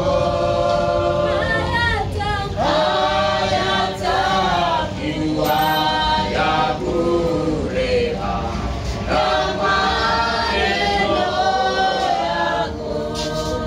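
A group of voices singing a church hymn together in phrases.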